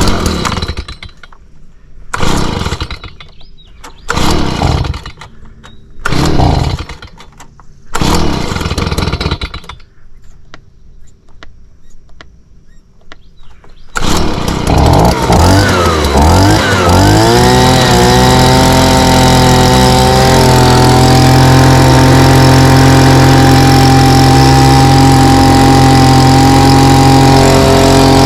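Small pull-start gasoline engine being cranked: five pulls on the starter cord about two seconds apart, then after a pause it catches about halfway through. Its pitch drops and settles, and it runs steadily to the end.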